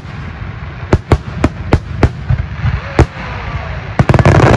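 Aerial fireworks shells bursting: a string of separate sharp bangs in the first couple of seconds and another around three seconds in, then a dense rapid volley of bangs and crackling about four seconds in.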